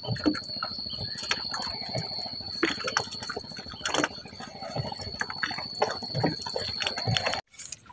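Spinning fishing reel being cranked in irregular clicks while a fish is played, with water sloshing against a wooden canoe hull. A steady high whine runs underneath and cuts off suddenly near the end.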